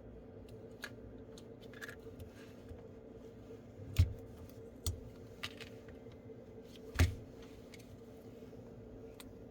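Scattered small clicks and taps from handling a smartphone and small repair tools on a bench, with two louder knocks about four and seven seconds in, over a faint steady hum.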